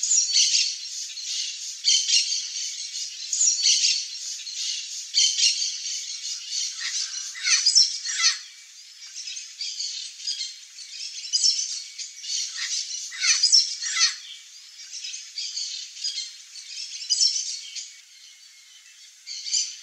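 Chestnut-eared aracaris calling: a rapid series of short, high calls, several of them sliding down in pitch, with a brief lull near the end.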